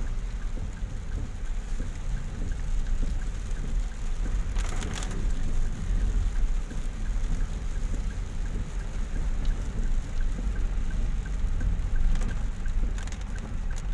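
Car cabin noise while driving in the rain: a steady low rumble of road and engine, with rain on the windshield and the wipers sweeping. There is a brief louder swish about five seconds in.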